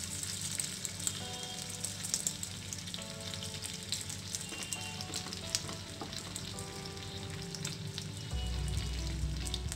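Breadcrumb-coated paneer nuggets frying in hot oil in a pan: a steady sizzle with many light crackling pops. A low hum joins near the end.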